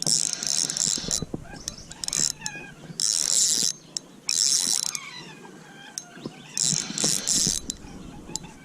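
Fishing reel being cranked in short spurts, about five bursts of whirring with pauses between them, as a fish is reeled in.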